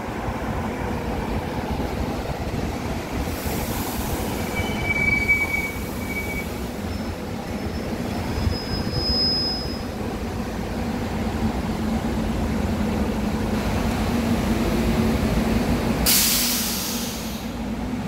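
SEPTA Silverliner IV electric commuter train rolling past the platform with a steady low rumble, its wheels giving two short high-pitched squeals. Near the end a loud hiss of air bursts out for about a second and a half.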